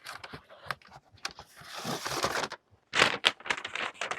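Cardboard and paper packaging handled: rustling and scraping, with a run of short clicks and knocks that is loudest about three seconds in.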